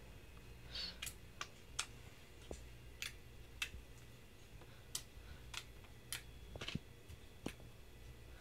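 Homemade slime being squeezed and kneaded by hand, giving small, irregular clicks and pops, about two a second.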